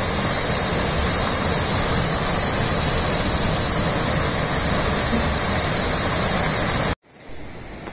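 Steady rush of a mountain stream pouring down a rocky waterfall, loud and close. It cuts off abruptly about seven seconds in, leaving a much quieter background.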